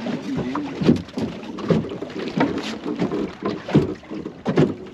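Waves slapping and knocking against the flat-bottomed plywood hull of a Goat Island Skiff as the dinghy tacks, with irregular bangs over a steady wash of water and wind.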